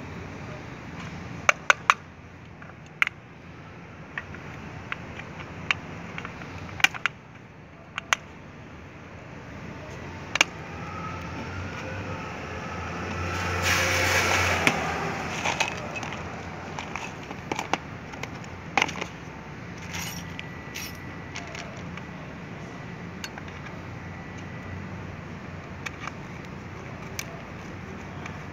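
Scattered sharp clicks and taps of a screwdriver and hands on the hard plastic housing of a beam sensor as it is screwed and pressed onto a metal post. Around the middle a rush of noise with a low hum swells and fades.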